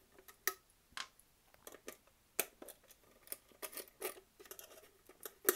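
Small screwdriver working tight screws out of a PC CD-ROM drive's metal casing: irregular sharp clicks and scrapes of metal on metal, the loudest near the end.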